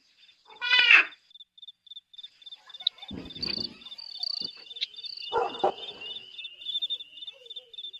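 Insects chirping in a rapid, even high-pitched pulse throughout. About a second in comes one short, loud high-pitched call, with a few soft rustles later.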